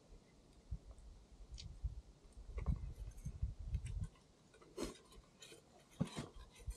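A hard-boiled egg being handled and shelled: a few faint, sharp clicks and crackles of eggshell, with low rumbling handling noise in between.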